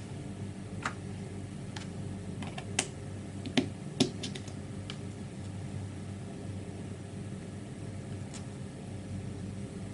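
Sharp little clicks and taps of plastic and metal parts as an airsoft Moscart shell is handled and its base cap fitted by hand. About a dozen clicks, bunched in the first half, over a steady low hum.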